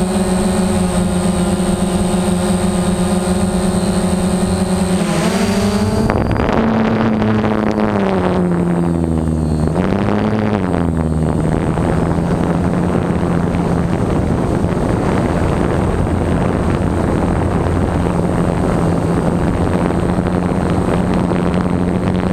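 Multirotor drone's electric motors and propellers humming steadily, close to the camera. About five seconds in the hum turns noisier and its pitch wavers up and down for several seconds as the drone manoeuvres, then it settles back to a steady hum.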